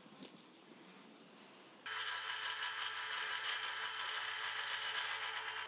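Bench drill press running, its bit boring into a walnut hammer handle. A steady machine hum comes in suddenly about two seconds in, after some light handling noise.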